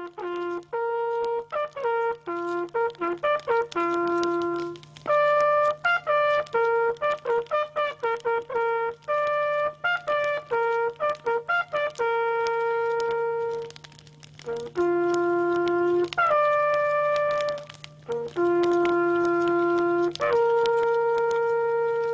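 A valveless hunting horn blowing a call on its natural notes: quick short notes at first, then long held notes with two brief pauses. It is the kind of horn call sounded over the laid-out game at the close of a driven hunt. A faint steady low hum runs underneath.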